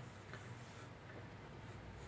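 Pencil scratching lightly on sketchbook paper: a few faint short strokes in the first second, over a low steady hum.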